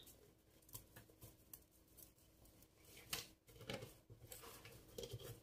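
Faint, scattered clicks and rustles of small faceted crystal beads on copper-coloured wire knocking together as hands handle and adjust a beaded crown.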